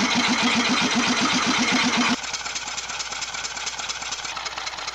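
Small single-cylinder engine converted to run on compressed air, running with a loud, even beat of about six pulses a second. About two seconds in, the sound cuts to a quieter, faster ticking beat from another air-converted engine.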